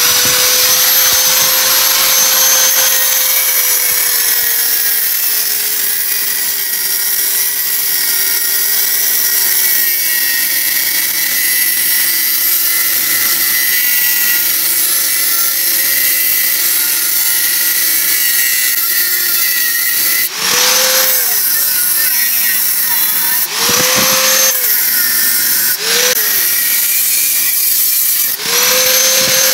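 Electric angle grinder with a cutting disc cutting into a metal car wheel hub: a steady motor whine over the hiss of the disc grinding through metal. The motor note sinks as the disc bogs down in the cut. Near the end the disc is lifted and pressed back in four times, and each time the note rises briefly before dropping again.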